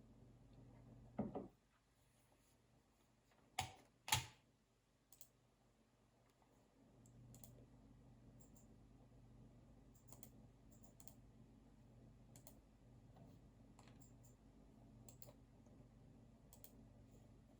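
Computer keyboard and mouse clicks at a desk, sparse and faint. A dull knock comes about a second in and two sharp louder clicks follow around four seconds, then only occasional light key clicks over a low steady room hum.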